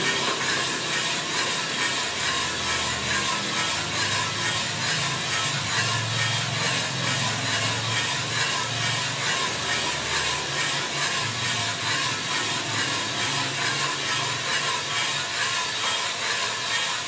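Small coffee drum roaster running mid-roast, its rotating drum tumbling coffee beans with a steady, even rattle over a constant hiss.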